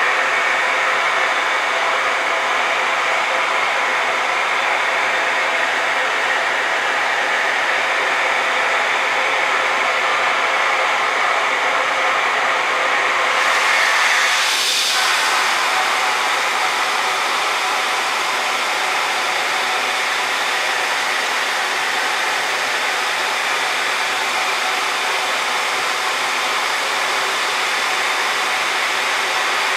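Loud steady rushing of a station ventilation blower, which the uploader takes for the platform's air blower. About 13 seconds in comes a brief swell with a falling hiss, and a higher hiss stays on after it.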